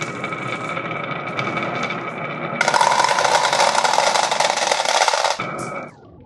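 Many marbles rolling and clattering down marble run tracks, a fast continuous rattle of clicks. About two and a half seconds in it turns much louder and brighter, then stops suddenly, with a quieter rattle trailing off.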